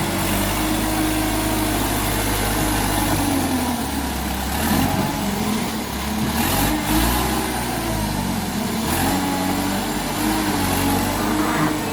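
Engine of an earthmoving machine working, its pitch rising and falling as it revs, with a few knocks about five, seven and nine seconds in.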